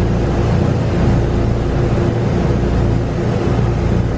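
Steady low drone of an engine running at a constant speed, with an even hum over it and no change in pitch.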